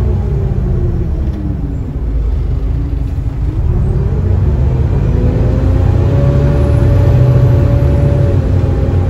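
Volvo B7TL double-decker bus's six-cylinder diesel engine heard from inside the passenger saloon while driving. The engine note drops over the first few seconds, then rises again as the bus accelerates, holds steady, and eases off slightly near the end.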